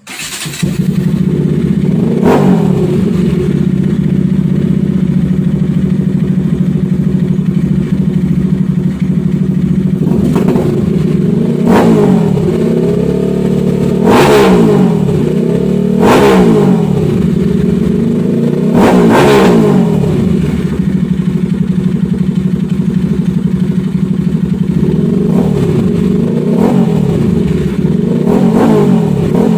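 Bajaj Pulsar RS200 single-cylinder motorcycle engine fitted with an Austin Racing aftermarket muffler, starting up and idling. The rider blips the throttle in about eight short revs through the exhaust, each dropping straight back to idle.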